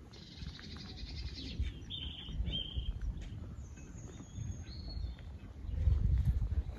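Birds chirping and calling in short, high notes, the clearest about two seconds in, over a low rumble that swells near the end.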